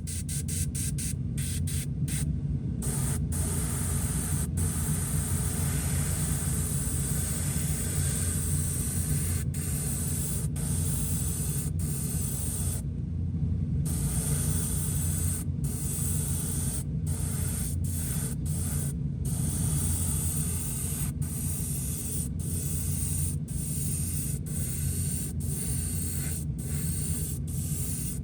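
Airbrush spraying with a steady hiss that briefly cuts out many times, over a steady low hum.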